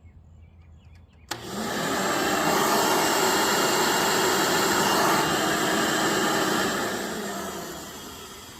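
Hoover Elite 600 upright vacuum switched on with a click about a second in, its motor spinning up and running loud and steady for about five seconds, then winding down near the end. The brush roll barely turns because its drive belt is broken.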